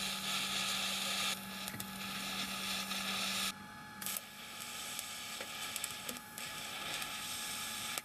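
TIG welding arc on steel hissing steadily in three runs, breaking off briefly about three and a half seconds in and again about six seconds in, with a low hum during the first run.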